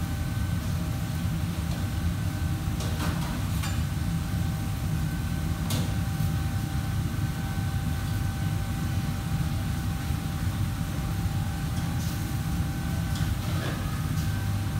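Steady mechanical hum of kitchen machinery: a low rumble with a thin whine held above it. A few light clicks and clatters of kitchen work sound through it, about three seconds in, just after, near six seconds, and near the end.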